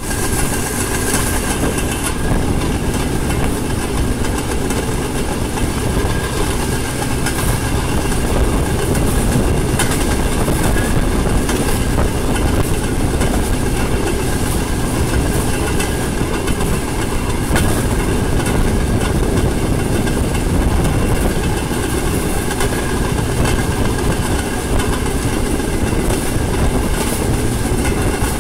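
Small motorized rail trolley running along a narrow-gauge track: steady loud running noise of the engine and wheels on the rails, with occasional short knocks.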